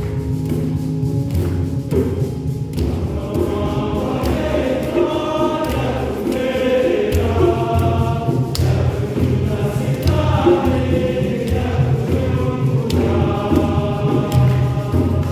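Traditional dance music: drums beating steadily, with a group of voices singing over them from about three seconds in.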